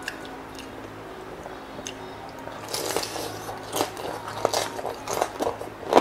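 Close-miked biting and chewing of crispy deep-fried pork knuckle (crispy pata): a few faint clicks, then from about three seconds in a run of irregular loud crunches.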